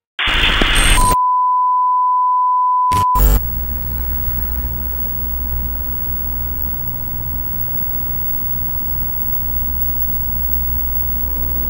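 Television test-card sound effect: a short burst of static, then a steady high beep for about two seconds, cut off by a crackle, then a steady low electrical hum.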